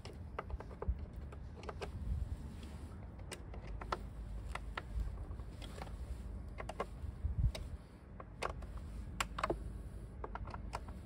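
Scattered small clicks and taps of hands handling parts around a motorcycle's air-filter housing and hoses, over a low steady rumble.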